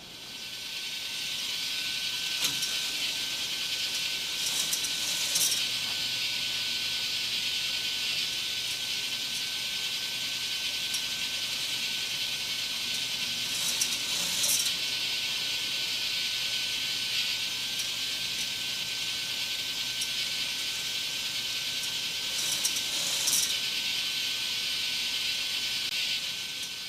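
K'nex model roller coaster running under its motor: a steady whirring hiss with a thin constant whine, and clusters of plastic clicking that come back about every nine seconds.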